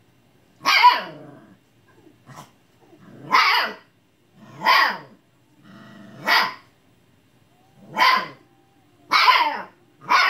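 Husky puppy barking and yelling repeatedly, about seven short calls roughly a second and a half apart, each falling in pitch. These are frustrated barks at a cat that won't play.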